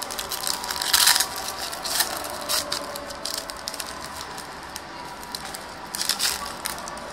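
Plastic-foil trading-card pack wrapper crinkling as it is handled and torn open, in irregular bursts, loudest about a second in and again about six seconds in.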